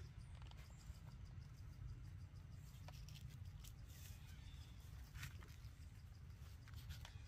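Near silence: faint outdoor ambience with a steady low rumble and a few faint clicks.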